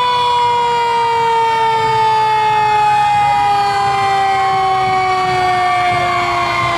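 Fire truck siren sounding, its pitch falling slowly and steadily. A second siren starts to rise near the end.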